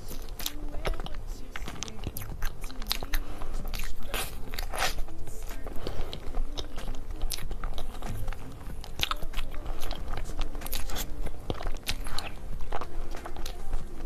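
Crisp crunching and clicking as a plastic spoon breaks into a chocolate-glazed cake and scoops its mousse filling, many short sharp crunches in a row. Background music plays underneath.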